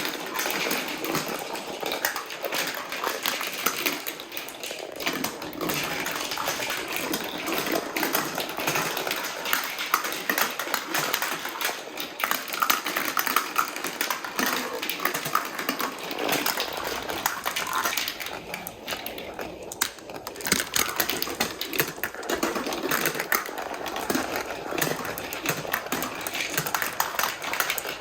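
Many marbles rolling and clacking through a plastic marble run track, a dense, continuous stream of rapid clicks and rattles.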